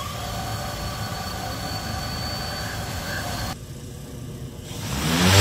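Jetson ONE personal electric aircraft's eight motors and propellers whirring at low speed just after start-up, with a steady whining hum. After a sudden drop about three and a half seconds in, the rotors spool up near the end into a much louder, deeper drone with rushing air as the craft lifts off.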